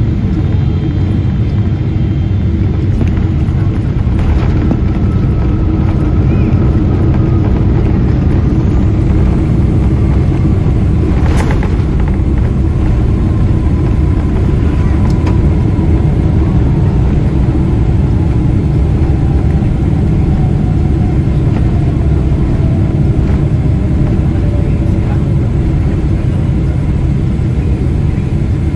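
Cabin noise of a Boeing 777-300ER with its GE90 engines: a loud, steady rumble, with a whine that slowly falls in pitch over about twenty seconds, and a single sharp click near the middle.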